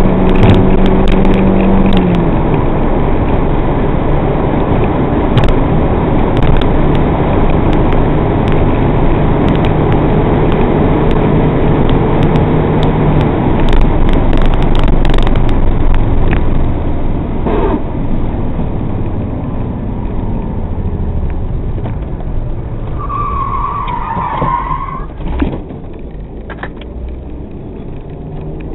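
MG TF's K-series four-cylinder engine running hard with loud wind and road noise inside the cabin, easing off about two-thirds of the way through. Near the end the tyres squeal briefly, falling in pitch, as the car turns into a corner.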